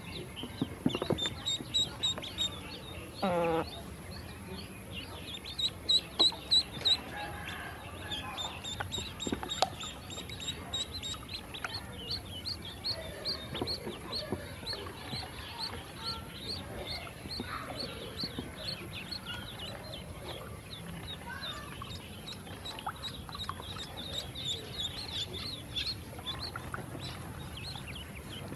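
Yellow ducklings peeping, a continuous run of short high chirps several per second, loudest around six seconds in. A lower, wavering call sounds briefly about three seconds in.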